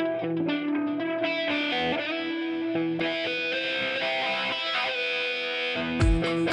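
Guitar-led background music holding sustained notes, with a heavy low beat coming in near the end.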